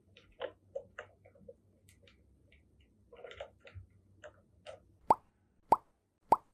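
Faint small clicks and taps, then three short, evenly spaced pops about two-thirds of a second apart, each a quick blip rising in pitch, starting near the end.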